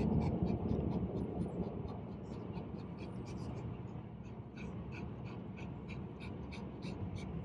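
Miniature schnauzer panting fast, about three quick breaths a second, under a steady low road rumble inside the car. The panting is a sign of stress at riding in the car.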